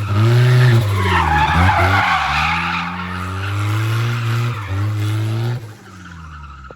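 Drift car engine revving hard, its pitch dipping and climbing again about a second and a half in, while the tyres squeal and skid for a couple of seconds. The engine note drops away near the end.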